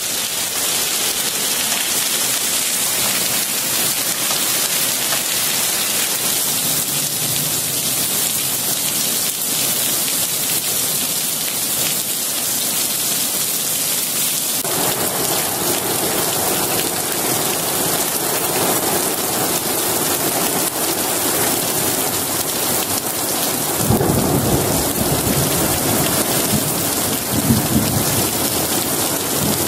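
Heavy rain pouring steadily during a thunderstorm, growing fuller about halfway through. Thunder rumbles from about 24 seconds in, swelling twice.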